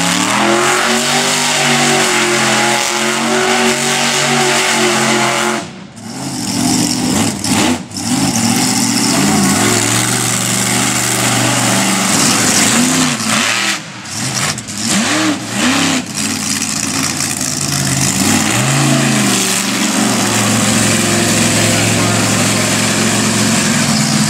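Red Baron monster truck's engine revving hard, over and over, its pitch rising and falling as the truck spins through the dirt. The noise drops away briefly about six seconds in and again around fourteen seconds.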